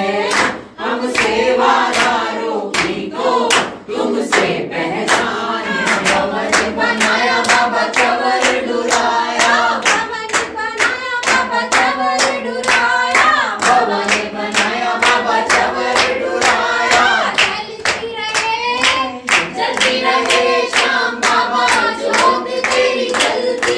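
A group of voices singing a devotional song together, with steady rhythmic hand clapping at about two claps a second.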